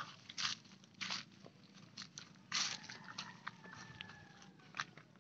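Faint, scattered short rustles and crackles, the loudest about half a second, one second and two and a half seconds in.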